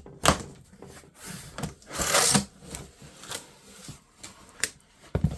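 Cardboard box and packaging being handled while it is opened: irregular scrapes and knocks, with a longer rasping scrape about two seconds in.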